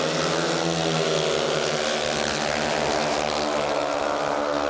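Several speedway bikes' 500 cc single-cylinder methanol engines running hard together as the pack races, a loud, steady, buzzing drone.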